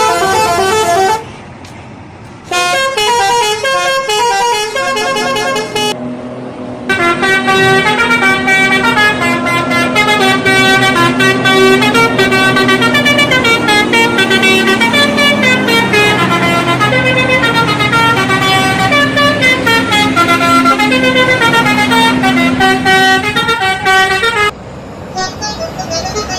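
Bus telolet horn, a set of electrically switched air-horn trumpets, playing a quick melodic tune of changing notes. It comes in a few short bursts, then one long loud tune lasting about seventeen seconds, which cuts off near the end.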